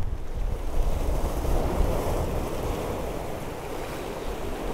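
Sea surf washing over shore rocks, with wind buffeting the microphone. The wash swells about a second in and eases a little toward the end.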